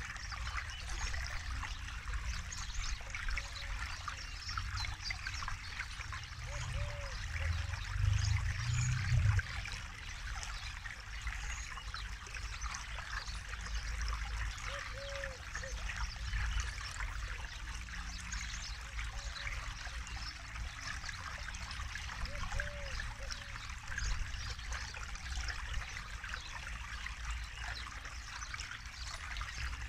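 Forest river flowing and trickling over stones in an even, steady rush of water. A short, low call repeats every few seconds, and a low rumble swells briefly about eight seconds in.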